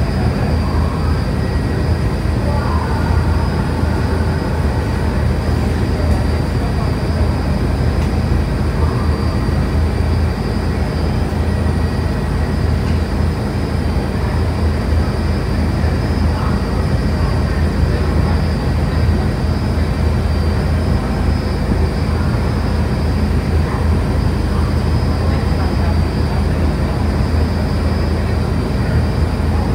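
Steady low engine drone of a ferry boat under way, heard on board, with an even rumble that holds at one level throughout.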